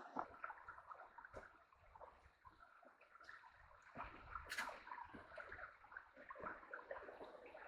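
Faint running and splashing water from a small waterfall, with a few light scattered clicks and knocks, the clearest about four and a half seconds in.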